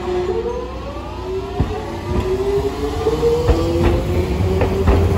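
Hiroshima Electric Railway 3800-series 'Green Liner' articulated tram pulling away from a stop and passing close by. The whine of its traction motors rises steadily in pitch as it picks up speed, and from about a second and a half in sharp clicks of the wheels over the rails join in.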